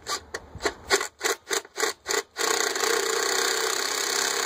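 Cordless power driver backing out a screw on a generator's spark arrester: several short trigger blips, then the motor runs steadily from about halfway through.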